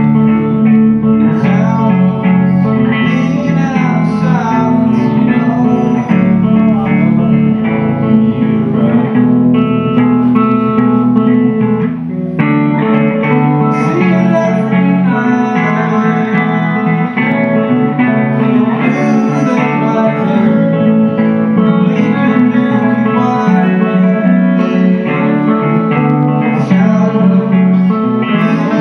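Live music: guitar played with singing, with a brief break in the sound about twelve seconds in.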